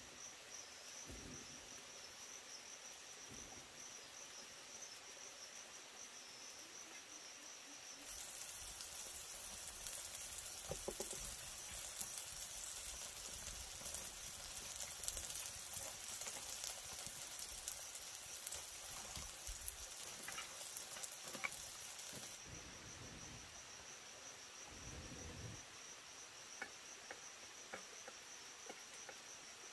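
Insects, crickets by their sound, trilling in one steady high note. From about 8 seconds in until about 22 seconds a louder crackling hiss covers it, with scattered dull knocks.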